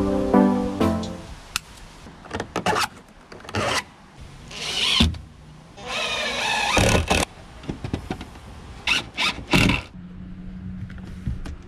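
Makita drill driving screws through a steel piano hinge into wooden boards: two short runs of the motor whine, with clicks and wooden knocks in between and a few more knocks near the end.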